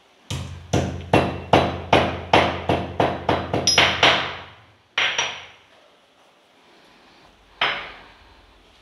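Green cardamom pods being pounded with a pestle: about a dozen quick, ringing strikes, then two single strikes a few seconds apart.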